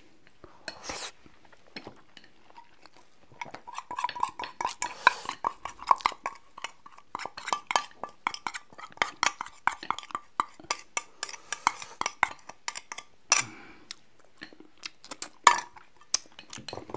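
Utensils clinking rapidly against a ceramic bowl for about ten seconds, the bowl ringing under the strokes, then a few separate knocks of tableware.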